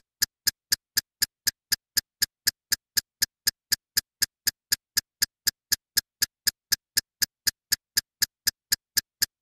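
Sharp electronic ticks at an even pace of about four a second, starting and stopping abruptly.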